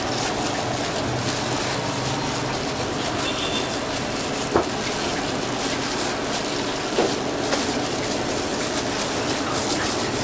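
Fried rice sizzling and hissing steadily in a wok over a gas burner, with a few sharp clinks of metal, the loudest about four and a half seconds in.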